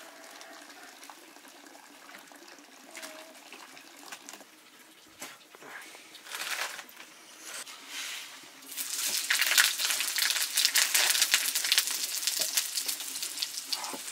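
Food sizzling and crackling in hot oil in a cooking pan. It starts loudly about nine seconds in, after a faint hiss and a few soft swells.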